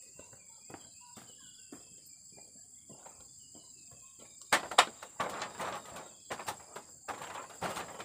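Insects, such as crickets or cicadas, trilling steadily at a high pitch, with faint scattered footsteps on dirt in the first half. About four and a half seconds in comes a sudden loud knock, followed by irregular rustling noise.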